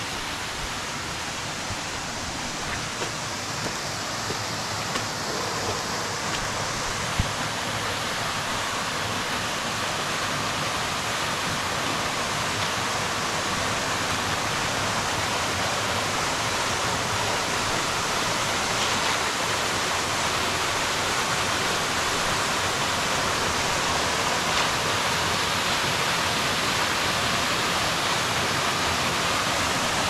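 Waterfall rushing: a steady wash of falling water that slowly grows louder, with a single sharp knock about seven seconds in.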